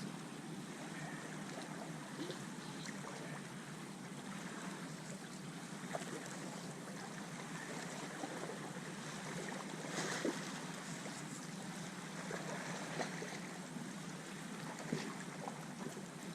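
Steady wind and water noise around the fishing spot, with a few light knocks and clicks; the sharpest comes about ten seconds in.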